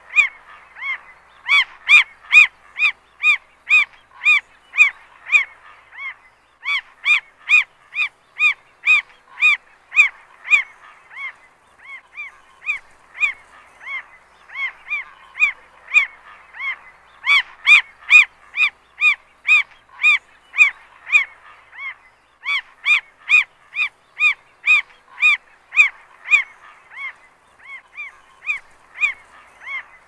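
Northern mockingbird singing: a long series of evenly repeated notes, about two to three a second, in runs broken by short pauses.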